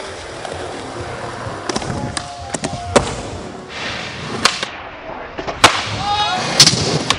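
Skateboard wheels rolling on smooth concrete, broken by several sharp clacks and thuds of the board popping, hitting obstacles and landing.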